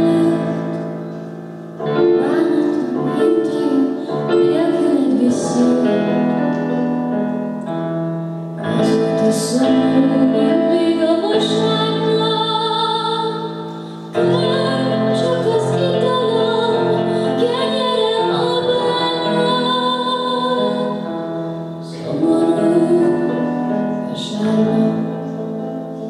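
A woman singing a song with Casio digital piano accompaniment. The singing comes in phrases over sustained keyboard chords, with brief breaks between phrases.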